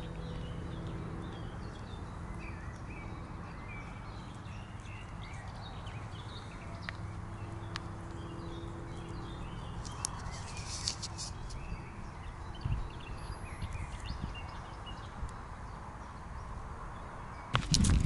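Small birds chirping and singing in woodland, many short calls over a faint steady low hum. A short stretch of soft rustling about ten seconds in, and a loud rustling clatter just before the end.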